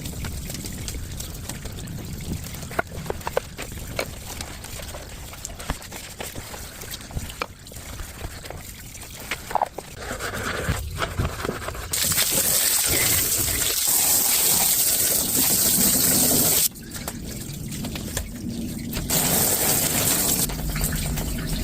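Water trickling and splashing during cleaning, with scattered small knocks. About halfway through, a louder steady rush of water starts suddenly and cuts off sharply a few seconds later, then returns near the end.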